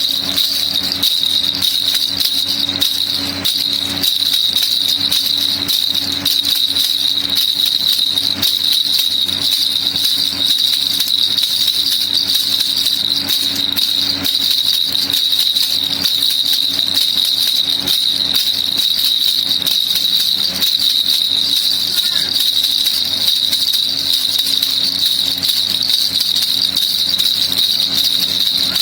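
Baby rattle shaken steadily, a dense fast rattling with a steady high ringing note under it.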